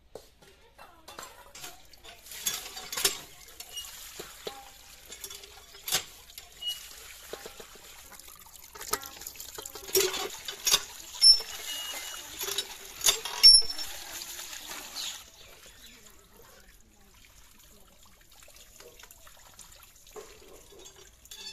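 Water splashing and pouring as raw rohu fish pieces are rinsed in a perforated aluminium bowl under a hand pump, with sharp knocks and clinks throughout. The splashing drops away about two thirds of the way through, leaving only faint trickling.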